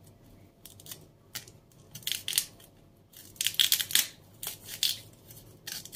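Large kitchen knife sawing through a raw cauliflower head: crisp crunching and crackling of the florets in short spells, loudest a little past the middle.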